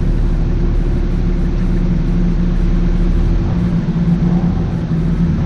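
Off-road 4x4's engine idling steadily at low revs, a constant hum over a low rumble that eases slightly a few seconds in.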